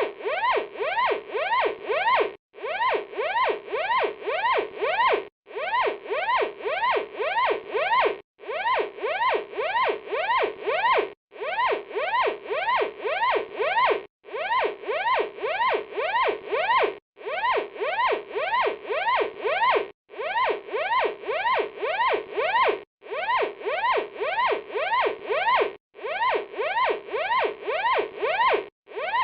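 Electronic fire alarm sounding: rapid rising sweeps, several a second, in bursts of about two and a half seconds separated by brief gaps, repeating evenly.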